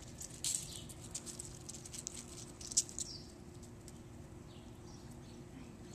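Puppies' claws and paws pattering and scratching on a concrete deck littered with dry leaves, in scattered light clicks that are busiest in the first three seconds. Faint high chirps come later, over a faint steady hum.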